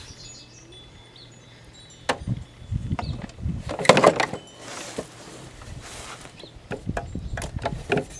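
Irregular metallic clicks and knocks of hand tools and bolts as a replacement engine is bolted onto a lawn mower, busiest in the middle and again near the end.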